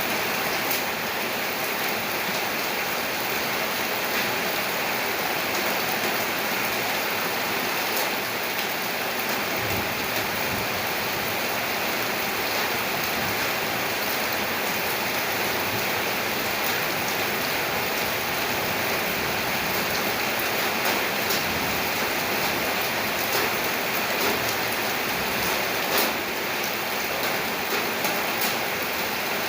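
Steady heavy rain falling, an even hiss of drops, with a few sharper single drop strikes standing out now and then.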